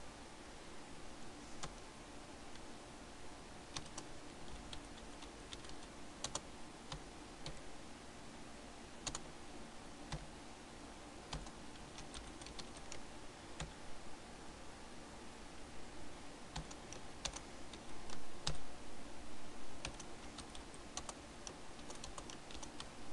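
Typing on a computer keyboard: irregular keystrokes in short runs with pauses between, coming more often in the second half, over a faint steady background hum.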